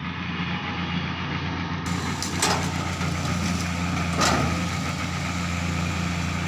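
Hitachi hydraulic excavator's diesel engine running steadily as the machine swings its boom and works its bucket, with two short knocks about two and a half and four seconds in. The sound fades up at the start.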